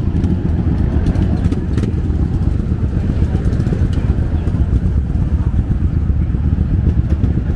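A group of motorcycle engines running, a steady low rumble, with faint voices of people around.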